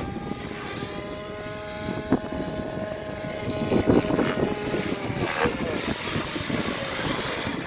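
Electric RC helicopter's motor and rotor whine, several steady tones over wind noise on the microphone. There is a sharp knock at about two seconds and a loud burst just before four seconds, after which the tones slide lower and fade as the rotor winds down with the helicopter on the ground.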